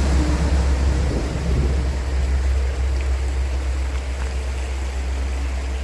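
Steady, deep rumble of highway traffic on Interstate 93, heard from close beside or beneath the road.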